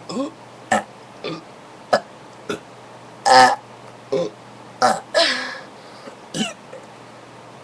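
A person belching over and over after drinking soda: about ten short burps roughly every half second, with a loud, longer one about three seconds in and another drawn-out one just after five seconds.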